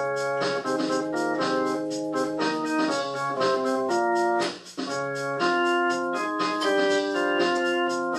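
Organ playing a run of held chords that change every half-second or so, with a brief break about four and a half seconds in.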